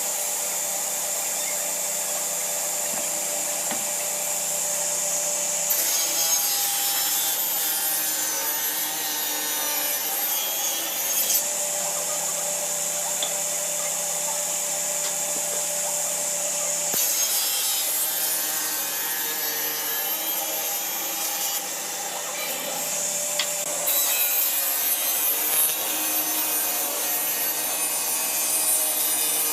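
A tool working wood, making a continuous rasping, sawing sound, with the sound changing abruptly several times as if between cuts of different operations.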